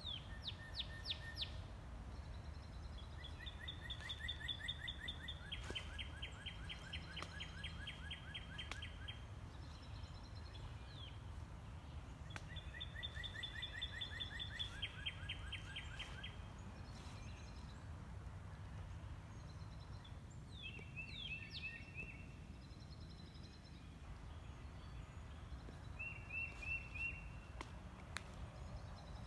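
Songbirds singing rapid trills of quickly repeated notes, in several bouts of a few seconds each, over a steady low background rumble.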